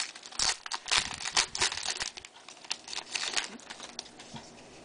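Foil wrapper of a baseball-card pack crinkling and tearing as the pack is opened and handled, a quick run of rustles that thins out near the end.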